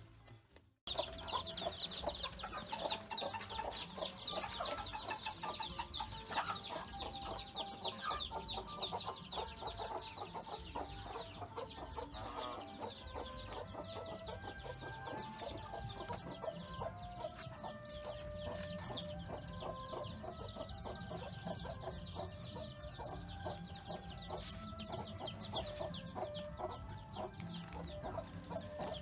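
Chickens clucking, with a dense high chirring throughout. It starts after a brief silent gap about a second in.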